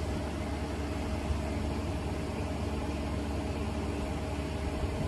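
Steady mechanical hum from a running appliance, with a low drone and a few steady held tones that do not change.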